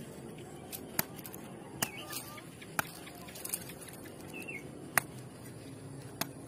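A sickle blade chopping at a coconut: sharp knocks, about five spread unevenly over six seconds. A bird chirps faintly between the blows.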